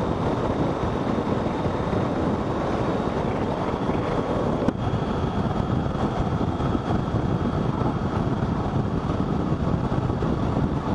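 Steady wind and road noise rushing over a helmet-mounted camera microphone on a moving motorcycle, with a single short click about five seconds in.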